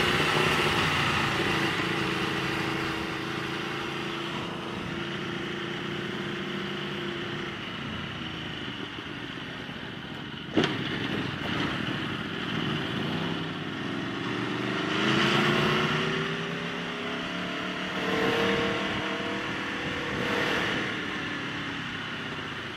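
Aprilia Tuono V4 1100 Factory's V4 engine heard from the saddle over steady wind rush. The engine note holds and eases off, then rises twice as the bike accelerates hard. There is one sharp click about ten and a half seconds in.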